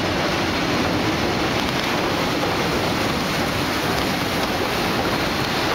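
Steady, even rushing noise of a moving train car, heard through its open window.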